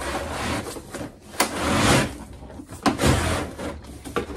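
A plastic toy wardrobe being pulled out of a cardboard box: cardboard scraping and rustling in three pushes, with a couple of sharp knocks as the plastic case bumps the box.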